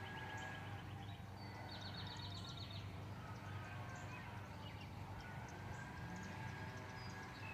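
Outdoor backyard ambience: scattered faint bird chirps and a short, rapid trill about two seconds in, over a steady low hum of distant background noise.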